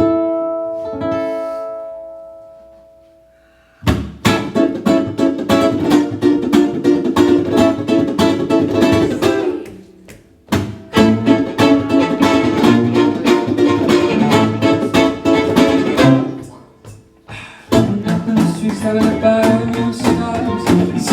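Strummed acoustic string instrument playing without singing. A chord rings and fades over the first few seconds, then steady rhythmic strumming starts about four seconds in and breaks off briefly twice.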